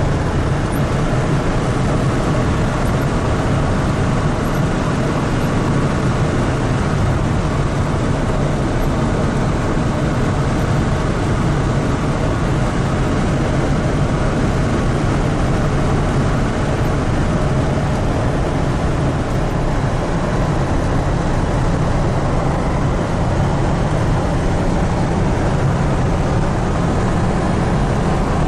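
Steady drone of a car cruising at highway speed, tyre, wind and engine noise heard from inside the moving car's cabin.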